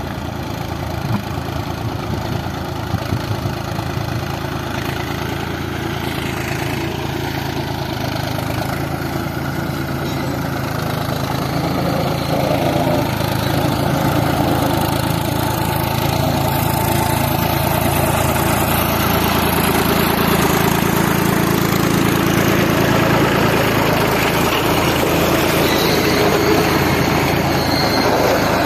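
Mahindra tractor's diesel engine running steadily as it drives its iron cage wheels through flooded paddy mud while puddling the field. It gets louder about halfway through as it comes closer.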